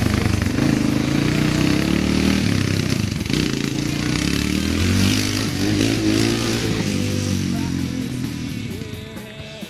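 ATV engine running under throttle as it is ridden, its pitch rising and falling with the revs, then fading away near the end.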